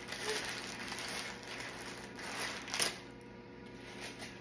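Parchment paper rustling and crinkling as a wrapped roast of lamb is opened, with a sharp rustle just before three seconds in, then quieter.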